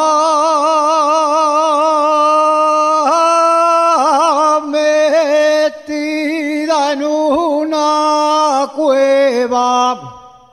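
Unaccompanied solo voice singing an Asturian tonada in praise of the Virgin: one long held vowel with wide vibrato, then ornamented runs of melisma, a short breath about six seconds in, and the phrase dying away near the end.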